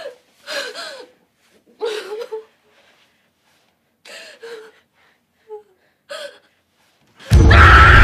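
A person gasping and whimpering in short, separate breaths with silences between. About seven seconds in, a sudden very loud blast of sound cuts in and keeps going.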